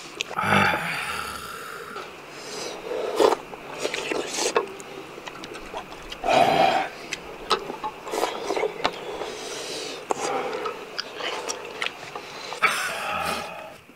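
People eating hot seafood porridge with spoons: irregular slurps and blowing on the hot spoonfuls, with spoons clicking and scraping against the bowls.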